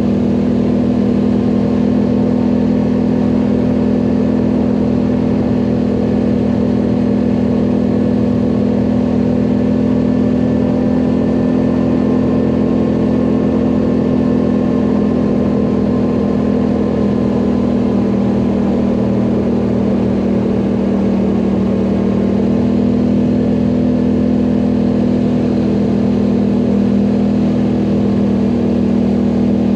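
ATV engine running steadily under way uphill, its pitch holding nearly constant throughout.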